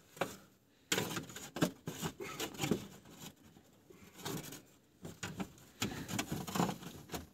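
Scattered light clinks, knocks and scraping of metal as a part is worked into place in a car's engine bay beside the radiator.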